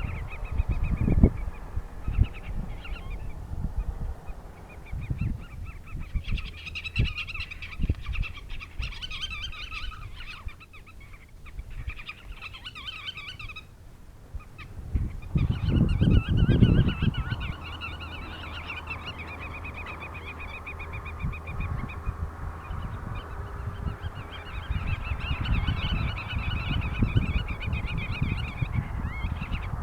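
Birds calling in long runs of rapid, repeated notes, with low rumbling thumps underneath, loudest about halfway through.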